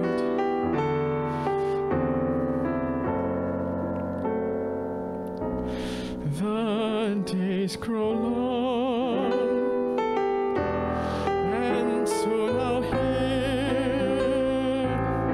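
A man singing with vibrato into a microphone over chords on a Korg digital piano; the first few seconds are piano alone, and the voice comes in about six seconds in.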